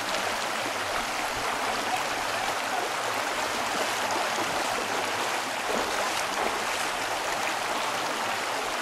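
Steady rushing of a shallow river's water flowing over rocks.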